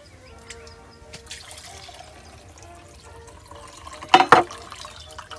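Coconut water trickling from a cracked coconut into a glass, then two sharp knocks close together about four seconds in as the machete blade strikes the coconut shell.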